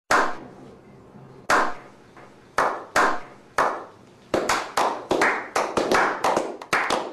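Slow clap by a small group of men. Single hand claps come about a second apart at first, then from about four seconds in several people clap together, faster and overlapping, at roughly three to four claps a second.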